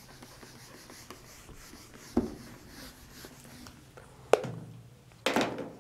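Felt duster rubbing faintly across a whiteboard, with a few short knocks and taps of handling at the board.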